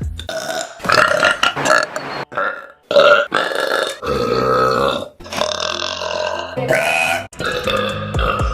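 A young woman burping again and again: about six long, voiced burps one after another with short breaks between, the loudest a short one about three seconds in. They are forced burps, made by swallowing air.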